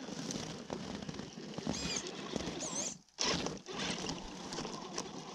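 Electric drive of a Traxxas TRX-4 Bronco RC crawler whining, its pitch wavering, as it crawls up a snowy slope under the load of a boat trailer, over a rough crackling noise from the tires in snow. The sound cuts out briefly about three seconds in, then comes back louder.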